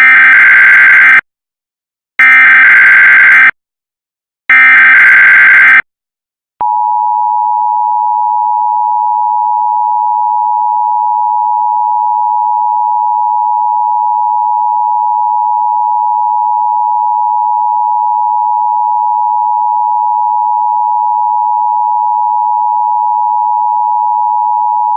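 Emergency Alert System SAME header: three loud bursts of screeching digital data tones, each about a second long with short gaps between. About six and a half seconds in, the EAS two-tone attention signal starts, a steady harsh dual tone that holds unchanged.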